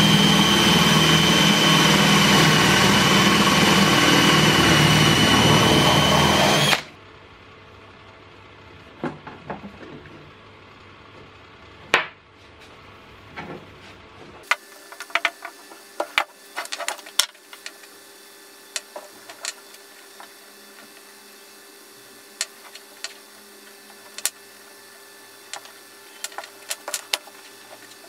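Cordless drill boring into wood with a steady, high whine that cuts off suddenly about seven seconds in. After it come scattered light clicks and knocks of wooden parts being handled.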